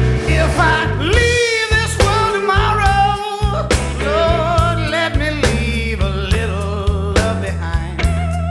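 Background music: a song with a wavering lead melody over a steady bass and drum beat.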